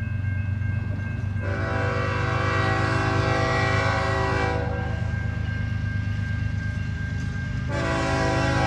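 Diesel locomotive's multi-chime air horn sounding a long blast of about three seconds, then a second blast starting about a second before the end, over a steady low rumble.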